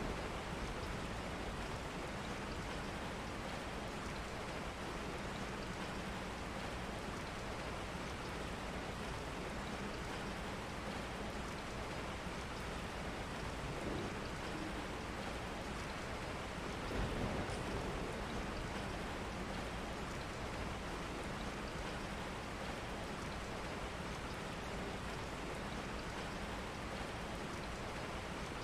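Steady rain falling, an even wash of patter, with a brief low rumble swelling up about two-thirds of the way through.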